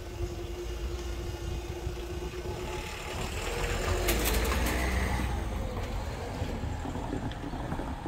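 Level crossing barrier motors humming on one steady note as the barriers rise, cutting off about three seconds in. A few sharp clicks follow about four seconds in. A road vehicle's engine then runs as it approaches and crosses, over a low rumble.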